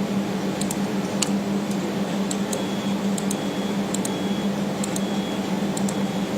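Steady electrical hum of laser welding equipment, with about a dozen light clicks scattered through it, typical of working a computer's controls while adjusting the laser head's focus height.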